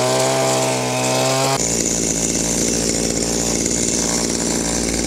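Two-stroke petrol chainsaw running at high revs with a steady note; about a second and a half in the sound changes abruptly to a rougher, lower run as the saw cuts into brush and brambles.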